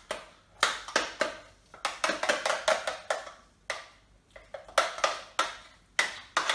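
Spoon knocking and scraping against a plastic food-processor bowl while scooping out thick cashew cheesecake filling: an irregular run of sharp clacks and scrapes.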